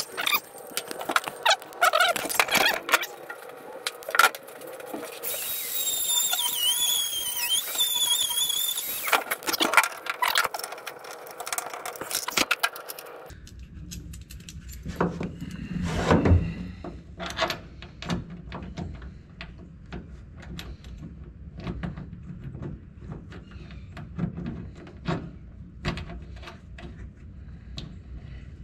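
Metal clicking and clanking of hand tools and a body bolt as it is worked into a misaligned body-to-pan bolt hole, with a high, wavering squeal lasting a few seconds about five seconds in. A low hum comes in about halfway, under further scattered knocks and clicks.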